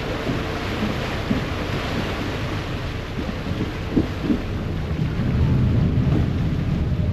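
Wind rushing over the microphone on a moving ferry's open deck, with the churn of the ferry's wake; the low rumble swells louder in the last two seconds, with a couple of brief thumps about four seconds in.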